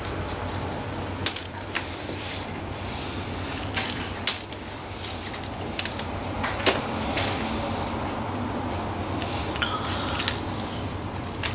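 Fresh almonds being opened by hand: several short, sharp cracks and clicks as the green husks and shells split, over a steady low background hum.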